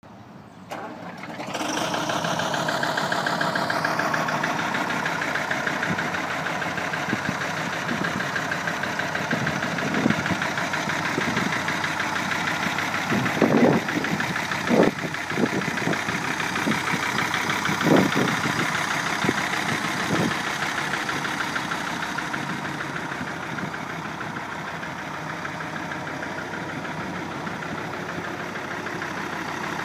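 A Deutz AX 100 tractor's air-cooled diesel engine running as the tractor drives about. The engine comes up to speed in the first few seconds with a rising pitch. A handful of short sharp clunks come near the middle.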